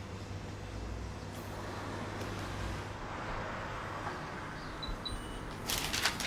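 Steady low hum of a shop's room tone, with two faint short high pings about five seconds in. Near the end a quick run of sharp clattering knocks begins, like utensils on a counter.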